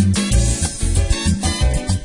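Salsa music playing loud, with a busy bass line and dense percussion.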